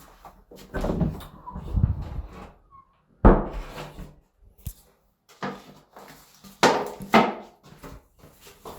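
Handling noises in a small bathroom: a series of knocks and clatters with rustling between them, the sharpest knock about three seconds in and another pair near seven seconds.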